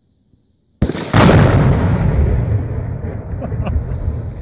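An explosive charge packed with flour detonating: a sharp crack about a second in, then a much louder blast a fraction of a second later that rumbles and echoes away slowly.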